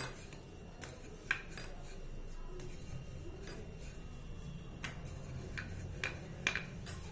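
Wooden rolling pin rolling out paratha dough on a countertop: scattered light clicks and knocks as the pin is set down and pushed, and the dough is lifted and turned, over a low steady hum.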